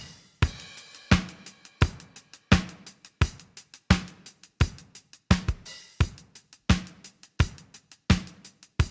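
Drum kit playing a steady beat, with kick, snare, hi-hat and cymbals and a strong hit about every three-quarters of a second.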